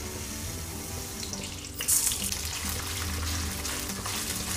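Whole green moong beans pouring into hot ghee in a nonstick kadai and sizzling, the hiss getting louder from about two seconds in. Soft background music underneath.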